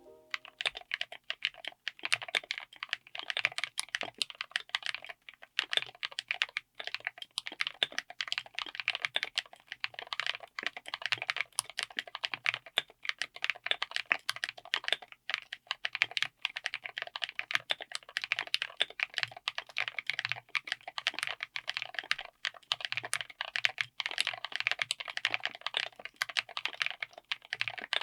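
Fast, continuous typing on a mechanical keyboard with Keebfront Bigwig long-pole linear switches (HDPE and PBT housings), built on a DZ60 PCB with an FR4 plate in a Tofu60 aluminium case. Dense, uneven keystroke clacks with no clicky tactile sound.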